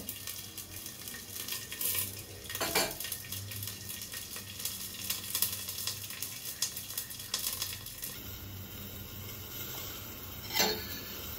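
Zucchini halves frying in oil in a pan under a glass lid: a steady crackling sizzle with fine popping. Two louder short knocks, one about a quarter of the way in and one near the end.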